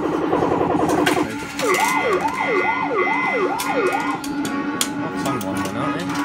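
Electrocoin OXO Super Reels fruit machine playing its electronic sound effects. A fast run of rapid beeps gives way to a wailing tone that swoops up and down about twice a second, over a steady low tone, with a few sharp clicks.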